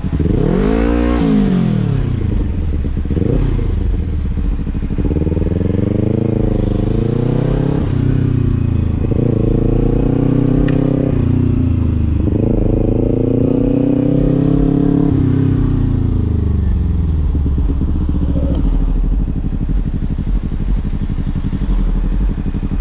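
Kawasaki Ninja 300's parallel-twin engine revving as the motorcycle accelerates and slows. The pitch climbs and falls several times, with sudden drops between climbs.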